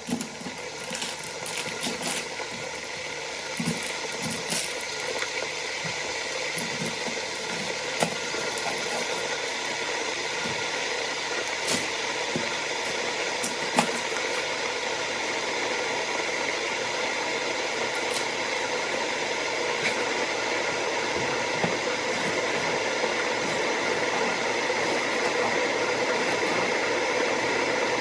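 Steady hissing noise of stovetop cooking, growing slowly louder, with scattered clicks and light knocks.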